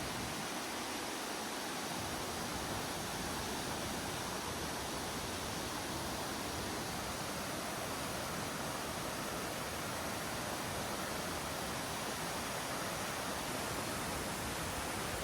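Steady, even rushing of a large waterfall.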